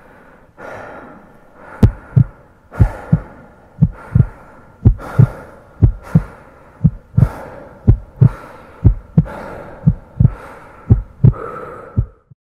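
A heartbeat sound effect: pairs of low thumps about once a second, starting about two seconds in, over a faint hiss and a steady hum. It cuts off suddenly near the end.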